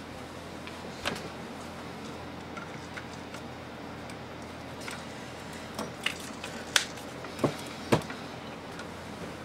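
Small clicks and light knocks of a flood lamp's reflector being handled and fitted onto the lamp: one about a second in, then a cluster in the second half, the sharpest near the end, over a steady low room hum.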